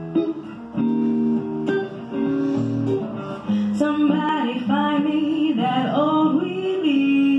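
Live guitar strumming chords, with a woman's voice coming in about halfway through and singing a slow melody over it.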